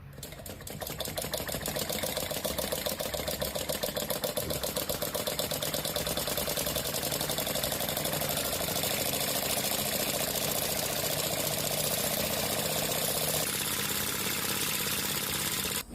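Small model Stirling engine running, a fast, even mechanical ticking rhythm that builds up over the first couple of seconds and then holds steady.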